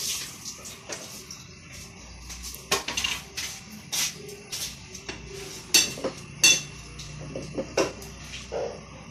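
Kitchen clatter of pots, pans and utensils: a string of irregular sharp clinks and knocks, the loudest two about six and six and a half seconds in.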